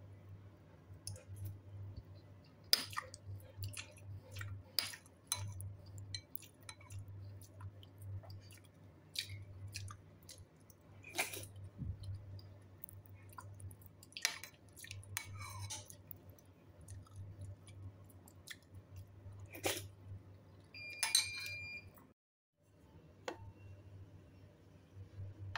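A person eating tofu and luffa soup with rice: close-up chewing and mouth noises with scattered spoon clicks over a low steady hum, and one ringing clink of a spoon against a dish about 21 seconds in.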